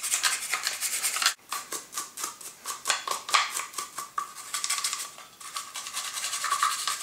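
A toothbrush scrubbing the shotgun's fore-end iron around its springs, its bristles scratching in rapid back-and-forth strokes.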